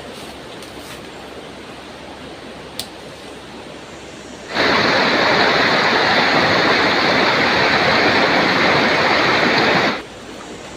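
Flowing stream water: a loud, steady rush that starts suddenly about four and a half seconds in and cuts off suddenly near the end. Before it there is a quieter, steady outdoor hiss with a single sharp click.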